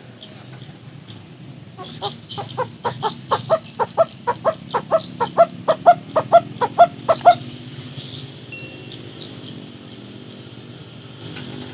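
A takur barbet giving its 'teguk teguk' call: a run of about twenty short, hollow notes, roughly four a second, growing louder, then stopping about seven seconds in.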